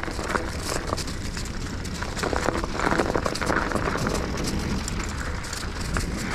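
Mountain bike on plus-size tyres rolling along a snow-covered dirt trail: tyres crunching and crackling over snow and frozen ground, with a steady low rumble and frequent small clicks and rattles.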